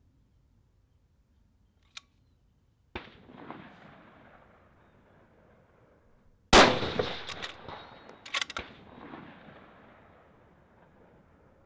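A rifle shot about six and a half seconds in, the loudest sound, echoing and dying away over a few seconds, followed about two seconds later by a quick cluster of sharp metallic clicks. A quieter sharp bang with its own fading echo comes about three seconds in.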